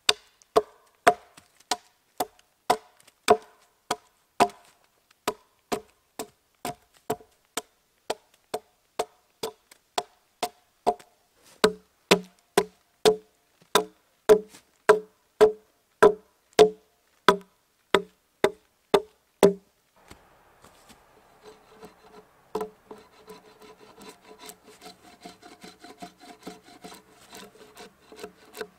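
Axe blows hewing a green poplar log, about two a second, each a sharp knock with a short ring. About two-thirds of the way in the chopping stops and gives way to continuous rasping as the hewn top of the bench is smoothed.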